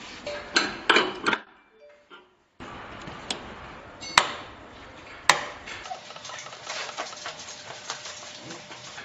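Metal clinks and knocks from handling the parts of an HDPE butt fusion welding machine, then two sharp clicks about four and five seconds in, which fit red rocker switches on its control box being flipped.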